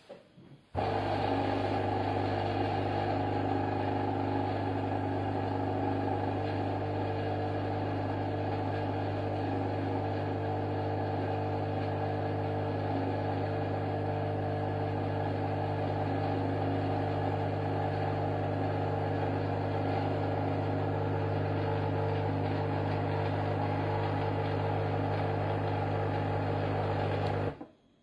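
Krups Virtuoso XP442C espresso machine's vibration pump running in a steady hum while it pumps water through the coffee and pulls espresso shots into two glasses. It starts about a second in and cuts off suddenly near the end.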